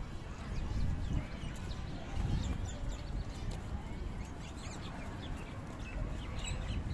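Birds chirping in many short, quick rising and falling calls, over a steady low rumble.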